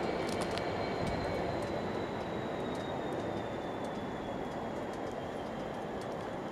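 Freight train hauled by a Class 66 locomotive receding along the line: a steady rail rumble slowly fading, with a thin wheel squeal whose pitch drifts slowly down, and a few sharp clicks in the first second.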